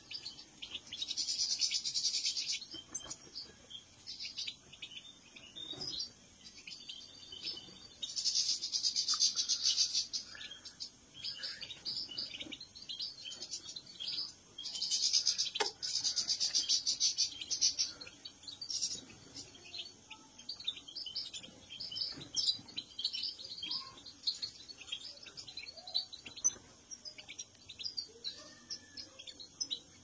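Caged European goldfinches singing: quick twittering chirps throughout, broken by three louder, longer rapid trills, about a second in, about eight seconds in and around fifteen seconds in.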